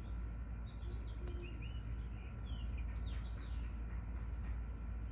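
Small birds chirping, with many short chirps and quick whistled glides throughout, over a steady low rumble of background noise.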